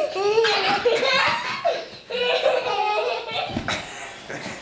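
Young children laughing, high-pitched and excited, with a brief lull about two seconds in.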